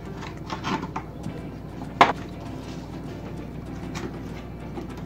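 A gift box and its cardboard packaging being handled and opened: rubbing and scraping, with one sharp knock about two seconds in. Faint music plays underneath.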